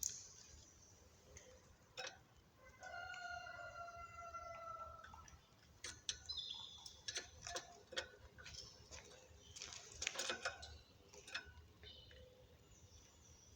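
Caged birds: one long, steady call about three seconds in, short high chirps a little later, and many light clicks and taps of birds moving on perches and cage wire.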